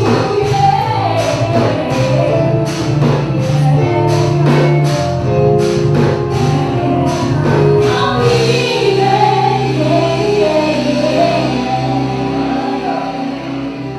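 Live band playing, with a female lead vocalist singing over keyboards, electric guitar and drums. The drum beat drops out about two-thirds of the way through, leaving the voice and held chords.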